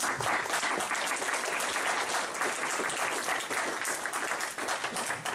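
Audience applauding, a dense clatter of many hands clapping that tapers off near the end.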